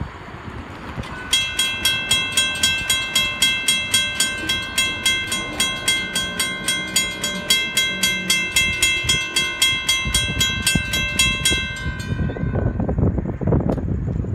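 Railroad grade-crossing warning bell ringing in a rapid, even series of dings while the crossing gates lower. It starts about a second in and stops a couple of seconds before the end, leaving a low rumble.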